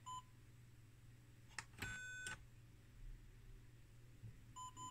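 Seaward SBS 7671 tester's buzzer beeping as its keypad buttons are pressed: a short beep at the start, a click, a half-second beep in a different tone about two seconds in, and two quick short beeps near the end.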